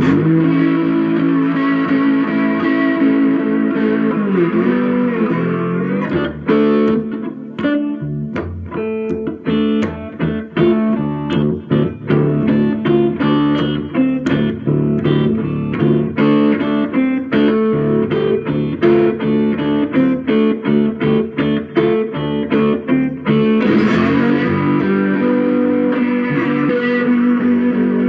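Guitar played slide-style with a bottle. It starts with sustained chords that glide in pitch, moves to a long run of quick picked notes, and returns to gliding chords near the end.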